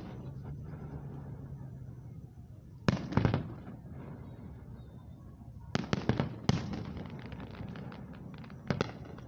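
Aerial fireworks shells bursting in the distance: sharp booms about three seconds in, a cluster of reports with crackling around six seconds, and another boom near the end, with low rumbling echo in between.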